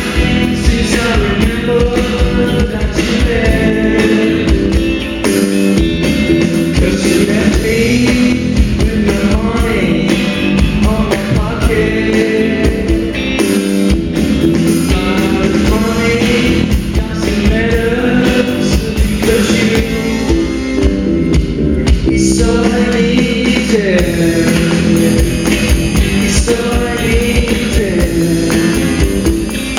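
Loud pop-rock song with sung vocals, guitar and drums, playing steadily.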